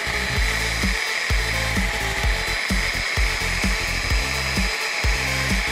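Background music with a steady beat over an electric rotary polisher running with a steady hiss, its pad buffing polishing compound across a cured epoxy resin surface.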